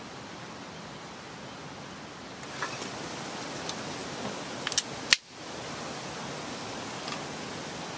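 Thin wooden kindling sticks being set into a steel firepit: a few light knocks and clicks, the sharpest just after five seconds, over a steady outdoor hiss.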